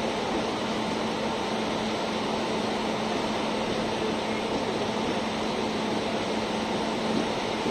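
Indian Railways passenger coaches rolling past during departure: a steady rush of wheels on the rails, with a constant low hum underneath.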